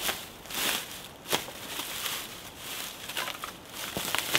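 Dry water-reed cuttings rustling and crackling as they are gathered and pushed across a floor by hand, in a run of short bursts with a sharp snap a little over a second in.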